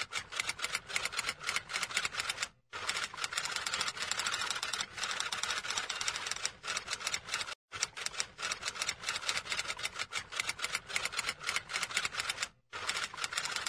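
Typewriter sound effect: a rapid clatter of key strikes, broken by a brief pause about every five seconds, laid under on-screen text being typed out letter by letter.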